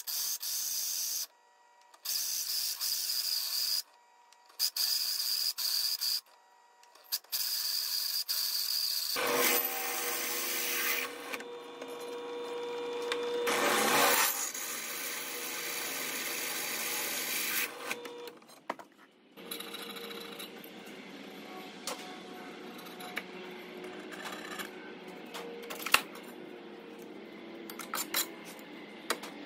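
Benchtop drill press running, its bit cutting through a steel plate: a steady whine with hiss, broken by short silent gaps a few times in the first seven seconds and loudest around the middle. It goes quieter in the second half, with scattered light clicks and scraping as the plate is handled.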